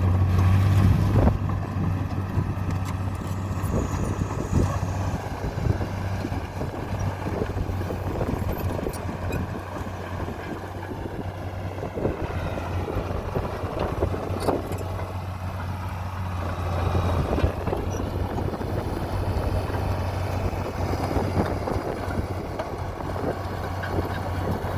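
1987 Komatsu D41P bulldozer's diesel engine running steadily with a low hum, with scattered knocks and clanks from the machine.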